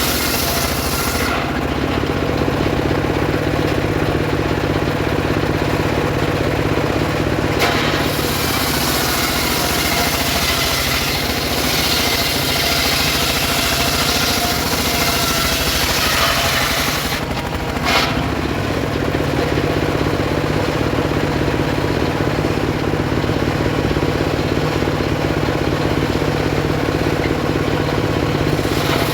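Homemade circular saw rig running steadily, its motor humming, while the blade rips sengon wood into boards. The cutting hiss swells and fades as the log is fed through, with two sharp knocks, one about a third of the way in and one past the middle.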